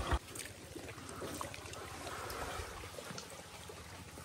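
A motorcycle engine running cuts off abruptly a moment in, leaving a faint trickle of water in a muddy tidal mangrove creek with a few scattered small clicks.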